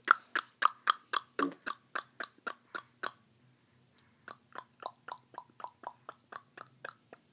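A child making rapid clicking noises with his mouth, about four sharp clicks a second, in two runs with a break of about a second a little before the middle.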